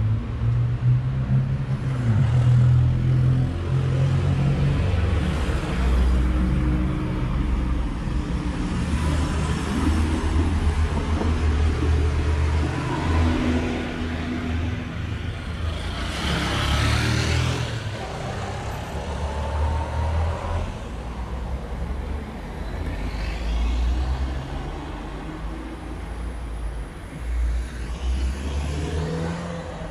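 Street traffic, with cars driving past. One passes close, loudest just after halfway.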